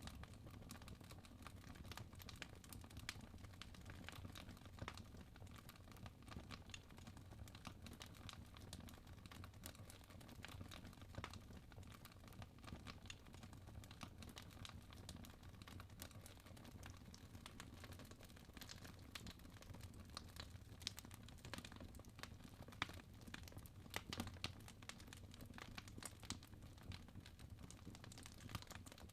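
Wood fire burning in a fireplace, crackling faintly with many small irregular pops over a low steady rumble.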